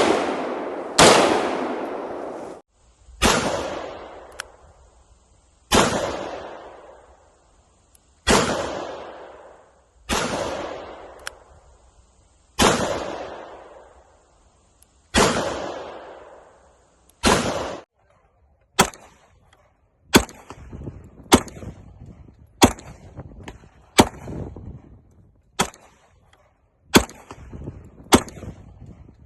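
A series of single gunshots from firearms of different calibres. The first nine come about every two seconds, each with a long echoing tail. From about eighteen seconds in, sharper shots with short tails follow about every second and a half.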